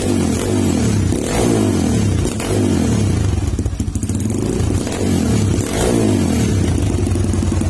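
Dirt bike engine breathing through a Radamel Racing TK1 aftermarket exhaust, revved repeatedly in short throttle blips, the pitch rising and falling back to idle each time. It is loud, as the new exhaust is tested.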